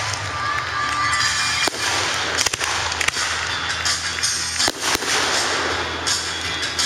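Aerial firework shells bursting in a display: several sharp bangs over a continuous crackle of burning stars and glitter.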